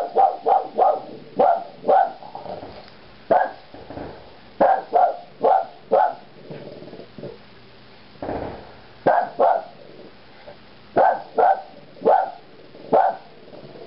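Boston terrier barking in runs of several sharp barks with short pauses between, about eighteen barks in all. It is alarm-barking at fireworks heard outside.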